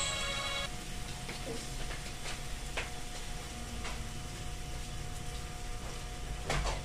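Mung bean broth simmering in a wok, a steady bubbling hiss with a few faint clicks.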